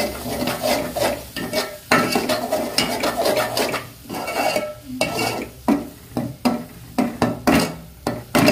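Metal spatula scraping and knocking against a metal cooking pot in irregular strokes while stirring a thick masala paste, with light sizzling of the masala frying in oil. The spice powders are being mixed into the frying onion-tomato base.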